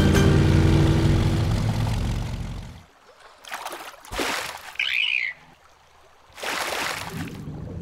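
Cartoon boat motor humming steadily, then fading out about three seconds in. Water splashes follow as a dolphin leaps into the sea, then a short high dolphin chirp, then another splash.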